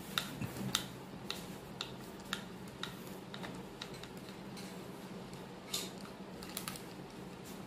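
Screwdriver turning a long screw out of a Makita angle grinder's plastic housing: faint light clicks, about two a second at first, then a few scattered ones near the end.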